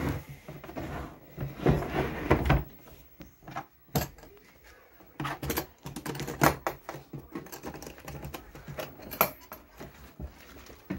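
Hard plastic carrying case of a demolition hammer being handled and its latches unsnapped: a run of irregular clicks and knocks, the sharpest about four and six and a half seconds in.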